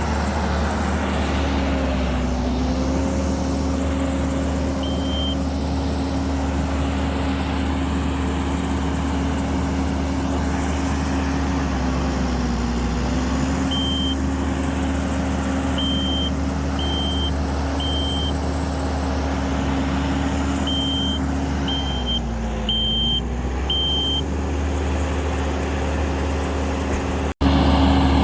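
Diesel engine of a Kubota 75 skid steer running steadily, its pitch dipping briefly under load a few times. A backup alarm sounds in runs of short beeps about a second apart, once early and then repeatedly in the second half.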